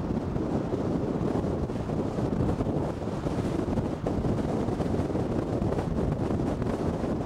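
Wind buffeting the microphone together with road noise from a moving car, a steady low rumble with no let-up.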